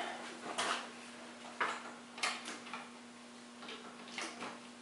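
A handful of sharp clicks and knocks as a garage door opener's power cord is plugged in and the unit is handled overhead, over a faint steady hum.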